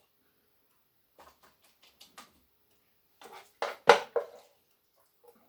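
A spoon clinking and scraping against a bowl and container while ground-meat filling is spooned into peppers: scattered light clicks, then a louder cluster of knocks about three and a half to four seconds in.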